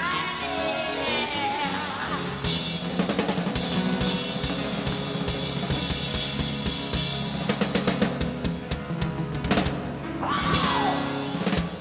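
Live rock band playing, with the drum kit pounding out bass drum, snare and cymbal crashes over piano and guitars. About eight seconds in, the drums break into a rapid fill, and a sliding held note rings out before the music stops abruptly near the end.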